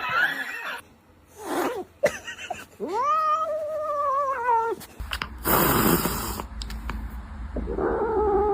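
An angry cat yowling in long drawn-out wavering calls, broken by sharp hisses, the longest hiss about halfway through.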